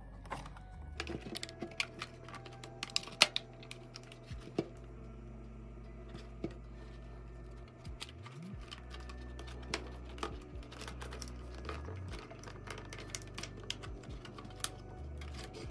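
Irregular light plastic clicks and taps as hands work the plastic housing of a Honda Civic instrument cluster, pressing and prying its retaining clips to release it. A faint steady low hum runs underneath.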